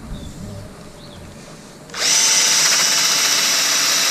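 Bosch cordless drill with a wire wheel brush spinning up about halfway in and running steadily with a high whine and scratching hiss, wire-brushing rust off a removed motorcycle foot lever.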